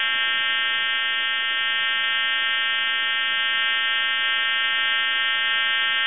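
A steady, buzzy hum on a telephone line that breaks into a time-and-temperature recording, heard through the line's narrow telephone band. The hum comes from a fault in the recording service's own equipment, not from the telephone.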